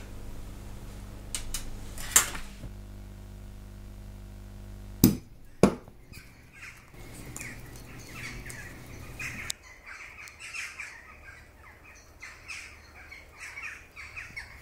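Jackdaws calling: a run of short, faint caws from about five seconds in. Before them a steady low hum, which stops with a pair of sharp clicks; these clicks, and one about two seconds in, are the loudest sounds.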